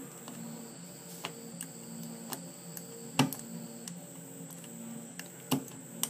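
Hobby knife prying and snapping small pieces of plastic support material out of a black 3D-printed part: irregular sharp clicks, the loudest about three seconds in, with a few more spread through.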